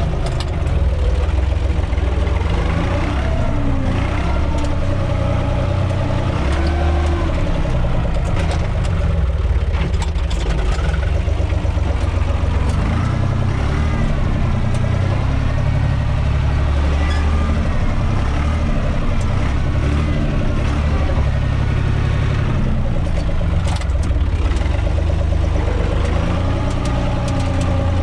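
UTB 445 tractor's diesel engine running steadily while the tractor drives, heard from inside its cab, with scattered short knocks and rattles.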